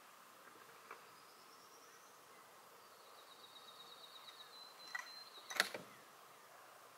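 Quiet outdoor ambience with a high, pulsing insect buzz in the middle, then a small click and, about five and a half seconds in, a sharper click, the loudest sound.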